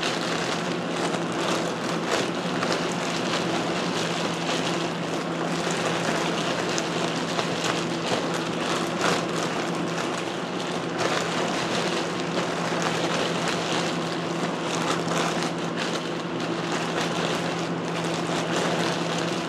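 Lab fans running with a steady hum, over which a plastic grain spawn bag crinkles and the grain inside crunches and rustles as a colonized king trumpet spawn block is kneaded by hand and broken back into single kernels.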